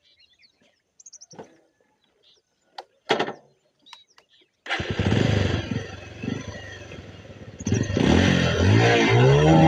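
A few scattered clicks and knocks, then about five seconds in a motorcycle engine starts abruptly and runs unevenly, consistent with a misfire. Near the end a louder sound whose pitch rises and falls in waves joins in.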